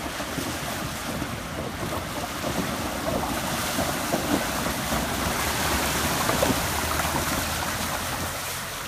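Creek water churning and splashing around a Subaru diesel SUV as it fords the crossing, building to its loudest about six seconds in and easing near the end.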